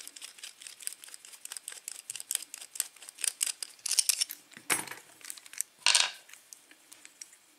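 Light metallic clicking and rattling of a padlock being handled as its core is taken out, with two louder clacks a little over a second apart past the middle.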